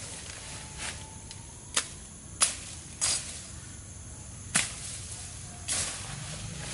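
Undergrowth being cleared by hand: about half a dozen sharp swishing strokes through leaves and stems at irregular intervals, the ground being cleaned off beneath a hornet nest.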